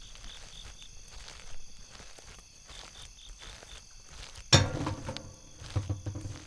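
Night ambience of crickets chirping steadily. About four and a half seconds in, a single sharp, loud knock breaks in, followed near the end by a few duller low thuds.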